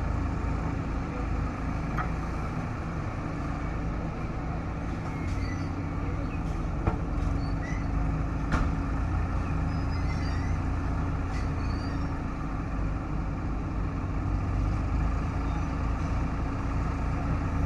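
Diesel engine of heavy earthmoving machinery running steadily, with a few sharp metallic knocks now and then.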